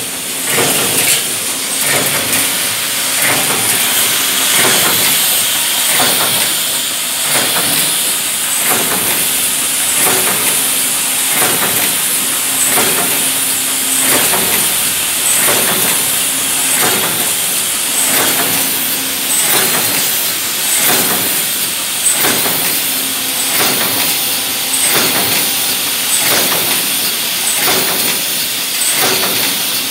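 Automatic wire-forming machine running as it bends wire into pail handles, with a steady hiss and a fast, regular clatter of knocks from its forming tools.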